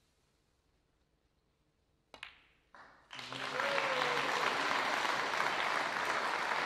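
A sharp click of a snooker cue ball strike about two seconds in, a softer knock as the black is potted, then audience applause from about three seconds in that carries on steadily, greeting the pot that ends the frame.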